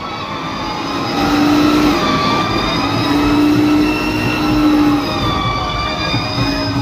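Fire engine siren sounding, its pitch rising and falling slowly, with three long, steady, lower horn-like blasts.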